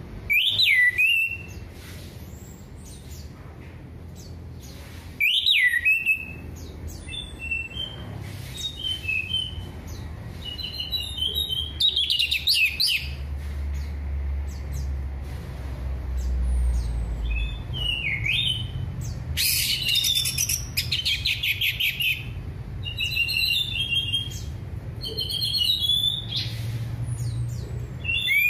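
Orange-headed thrush singing: loud whistled phrases that sweep up and down, separated by short pauses, with fast rattling trills in the middle and again later on, over a low steady hum.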